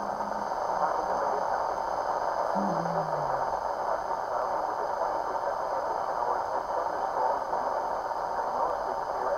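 Weather radio giving out a steady hiss of static through its small speaker, with a brief low falling tone about three seconds in.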